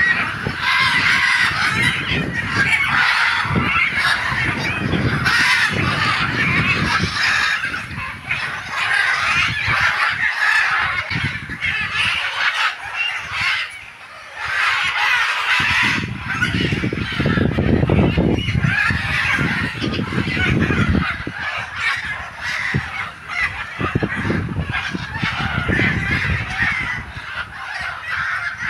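A flock of captive parrots squawking harshly, many calls overlapping almost without pause, easing off for a few seconds near the middle. A low rumble of wind and handling on the microphone runs underneath.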